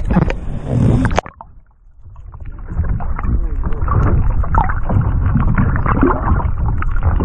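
Sea water sloshing at the surface, cut off abruptly about a second in. After a brief hush, a muffled underwater sound fades in, with a low rumble of waves and scattered crackles.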